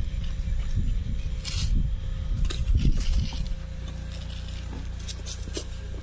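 Scattered crunches and scrapes in dry undergrowth over a low rumble on the microphone, which settles to a steadier low hum about halfway through.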